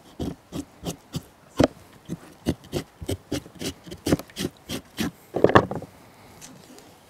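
Knife blade scraping the scalded scaly skin off a beaver tail on a plastic cutting board, in short strokes about three a second; boiling water has loosened the skin so it comes away like fish scales. The strokes stop after a louder, longer scrape about five and a half seconds in.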